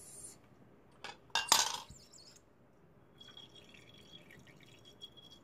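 Liquid slime activator poured from a plastic cup into a glass bowl of glue while a stirring stick scrapes and knocks against the glass. There are two sharp clinks about a second in, the second the loudest, then a faint steady trickle with light ticks.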